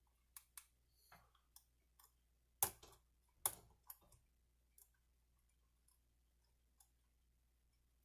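Faint, scattered clicks of a hook pick working the pins inside a pin-tumbler challenge lock under light tension, with two louder clicks about two and a half and three and a half seconds in.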